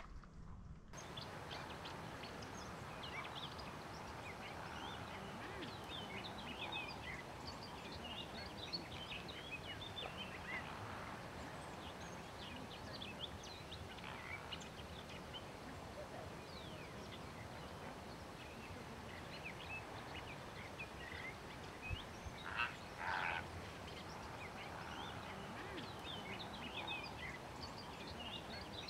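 A flock of water birds calling: a dense, steady chatter of many short overlapping calls, with two louder honking calls about three-quarters of the way through.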